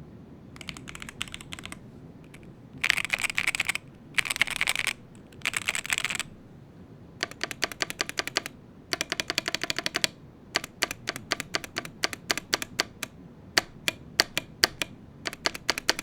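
Typing on an IQUNIX EZ80 aluminium-cased Hall-effect magnetic-switch keyboard: single keystrokes at a changing pace, with three short stretches of very rapid key presses about three to six seconds in.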